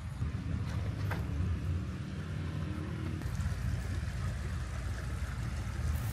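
Low, steady rumble of wind buffeting the microphone outdoors, with a faint tick about a second in.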